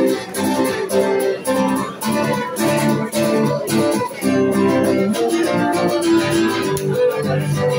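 Acoustic guitar strummed live, a steady run of chords with no singing.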